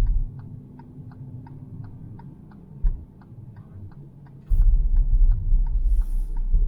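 A car's indicator clicking evenly, about three clicks a second, over the low rumble of the car driving; the rumble swells again about four and a half seconds in, with a brief hiss.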